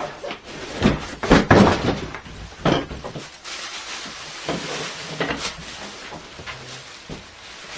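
Handling noise from unpacking parts: a cluster of knocks and clunks about a second in, then a few seconds of rustling, with scattered lighter clicks near the end.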